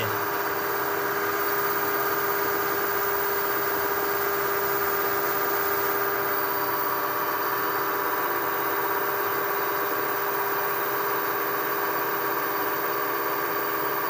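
A steady mechanical hum made of several constant tones, unchanging throughout.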